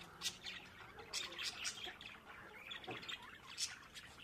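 Muscovy-cross duckling peeping: short, high chirps at irregular intervals, one of the loudest near the end.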